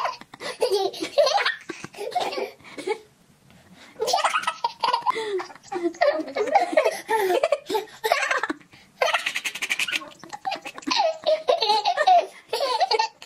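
A baby laughing hard in repeated fits of belly laughter, with a short pause about three seconds in and another near nine seconds.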